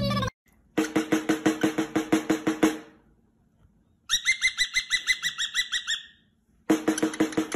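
Two quick drum rolls on a snare drum, about eight strokes a second, with a cockatiel answering between them in a fast run of chirps for about two seconds.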